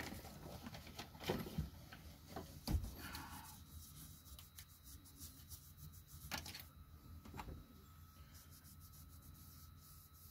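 Faint handling noise of a metal thermostat housing being wiped with a cloth towel: rubbing, with a few light knocks.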